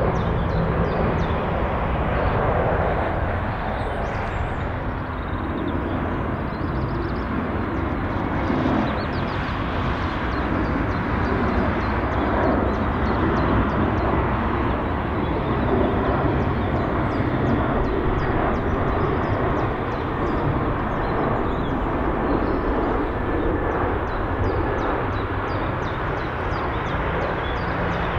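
Jet airliners landing and rolling out on a runway, a four-engine Airbus A340 and then an Airbus A320: a steady, distant rumble of jet engines with no sharp events.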